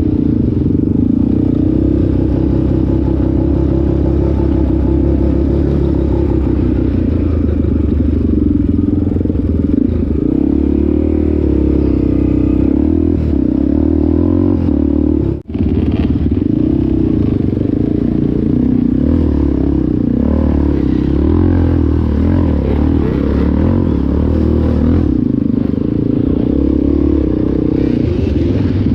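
ATV engine running steadily while riding. The sound drops out for an instant about halfway through.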